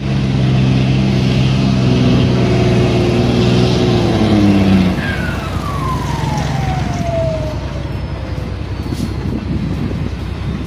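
Heavy diesel engine of earth-moving machinery running hard under load, its pitch creeping up. About five seconds in it eases off, with a single falling whine as it slows, and keeps rumbling at a lower level.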